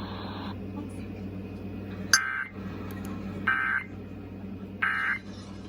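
Three short bursts of Emergency Alert System digital data tones, the SAME end-of-message code. Each burst is a brief warbling two-tone chirp, and they come about a second and a half apart, over a steady low hum. They signal the end of the severe thunderstorm warning broadcast.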